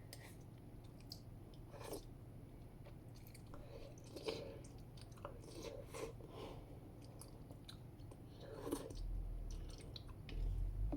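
A person chewing a mouthful of spicy mala food, with irregular small wet clicks and smacks of the mouth.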